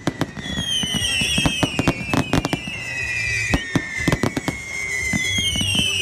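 Fireworks going off: a rapid, dense string of cracks and bangs, with several whistling fireworks screeching and falling in pitch over them.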